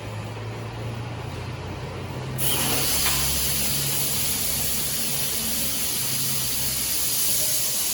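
Gas cutting torch of a track-type 'turtle' cutting machine: a loud, even hiss that starts suddenly about two and a half seconds in, over a low steady hum.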